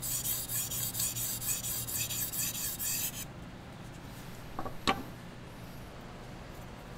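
A chef's knife blade scraped back and forth on a whetstone, about two strokes a second, stopping about three seconds in. Near five seconds a single sharp clack as the knife is set down on the wooden counter.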